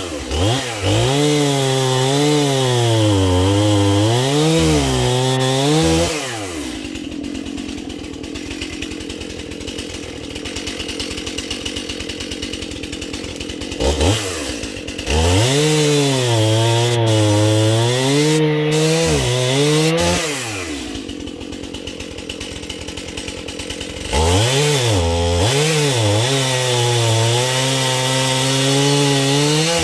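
Stihl MS 271 Farm Boss two-stroke chainsaw cutting through dead ash logs three times at full throttle, its pitch dipping and recovering under load. Between cuts it drops back to a quieter idle for several seconds, with a short blip of throttle before the second cut.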